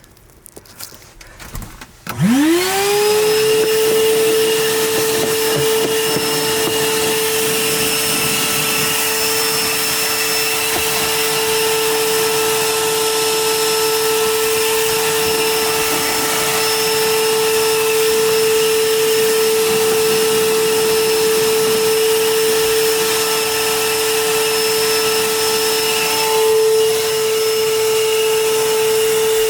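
Vacuum cleaner switched on about two seconds in, its motor whining quickly up to speed and then running steadily with a loud hiss of suction. Its tone shifts briefly near the end.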